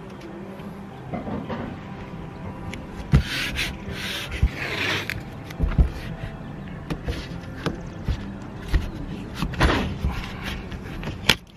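Blue painter's tape pulled off its roll in several short tearing bursts and pressed down by hand onto the ribbed metal van roof, with scattered light taps and knocks.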